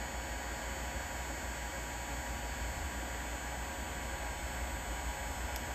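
Heat gun blowing steadily: a constant rushing of air with a low hum underneath, heating the back of a circuit board to melt the solder holding an LED.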